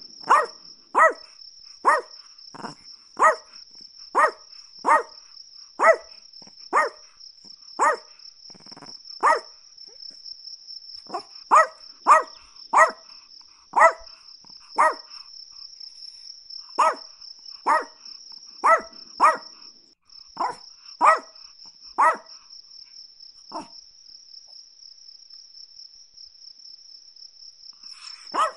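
Chihuahua barking in quick, sharp yaps, about one or two a second, then breaking off for about four seconds before starting again at the end. A steady high-pitched trill runs underneath.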